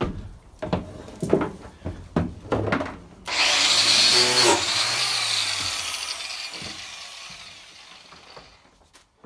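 A few knocks and clatters of handling, then a power grinder starts suddenly about three seconds in, grinding a spot on the van's bare steel floor. The noise slowly fades away over the last few seconds.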